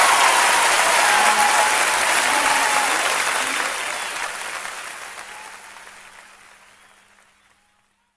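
Audience applauding at the end of a song, fading away over the last few seconds.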